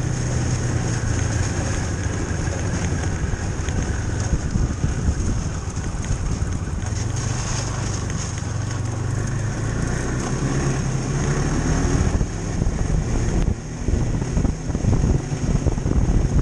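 Ski-Doo snowmobile engine running steadily as the sled travels along a snow trail, a low hum with a thin high whine over it. It turns choppier and more uneven in the last few seconds.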